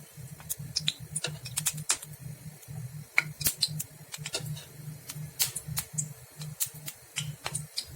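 Mustard oil heating in a kadhai, giving off scattered sharp crackles and pops at irregular intervals over a low hum.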